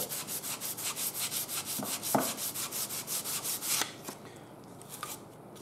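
Oiled 400-grit wet sandpaper on a honing block rubbed back and forth over the flat face of a hydrostatic transmission's metal center section, in quick, even strokes that stop about four seconds in. This is wet-sanding the face flat to take out the fine grooves that let the hydraulic fluid leak and lose pressure.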